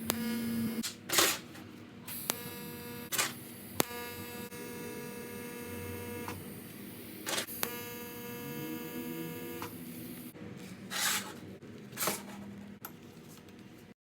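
A steady electronic buzzing tone that repeatedly switches on for one to two seconds and cuts off, most likely the recording glitch the uploader could not remove. Between the buzzes come several sharp knocks and rustles of kit parts being handled.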